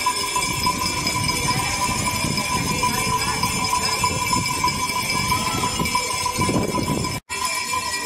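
Many small brass handbells rung together, a continuous jangling clatter over steady ringing tones. The sound cuts out for an instant a little past seven seconds.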